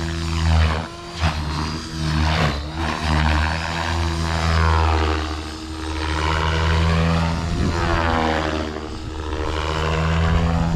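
Blade Fusion 550 electric RC helicopter in flight: a steady rotor drone runs throughout, with a whine that sweeps up and down in pitch and swells louder each time the helicopter passes close, several times over.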